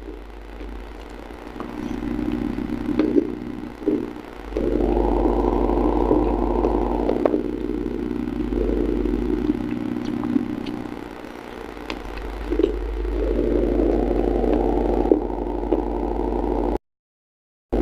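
Close-miked steel spoon scraping and clinking in an unglazed clay pot, with crunchy chewing of the clay, in two long stretches of scraping noise. The sound drops out completely for a moment near the end.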